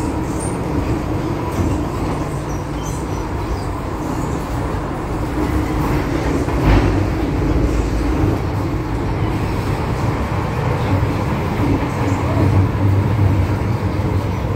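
MTR M-Train heard from inside the car while running through a tunnel: a steady low rumble of wheels on rail. A single knock comes about seven seconds in.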